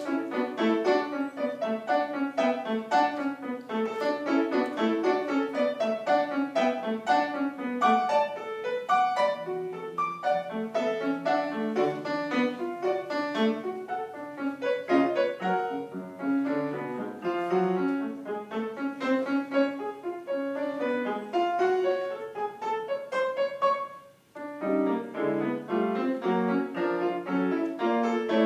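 Solo piano playing a lively piece in quick, rapid notes. The playing breaks off for a moment about 24 seconds in, then resumes.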